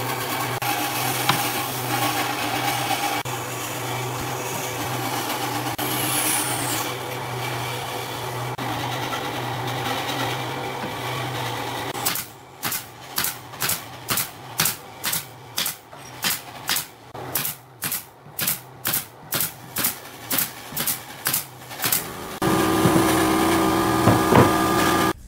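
A pneumatic nail gun firing into wooden boards, about two sharp shots a second for some ten seconds. Before the shots there is a steady machine hum, and near the end a louder steady machine noise.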